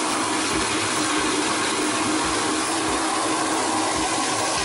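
Toilet flushometer valve flushing: a loud, steady rush of water into the bowl with a faint steady whine in it. The flow is strong enough to splash the hand held over the bowl, a sign that the flushometer's water pressure is set too high.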